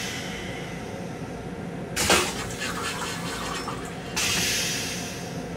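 Stainless-steel toilet in an LIRR M7 railcar restroom flushing. A hiss of rinse water into the bowl fades, a sudden loud whoosh comes about two seconds in as the bowl empties, and a second spray of water starts about four seconds in and tapers off.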